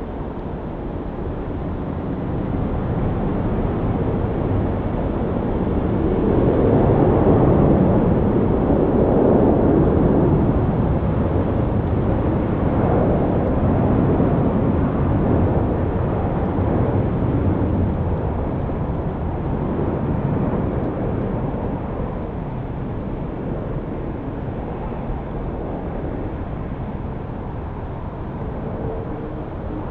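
Airbus A380-800 airliner's four turbofan engines on final approach, a steady rumble that swells to its loudest about seven to ten seconds in as the jet passes, then eases as it descends toward touchdown.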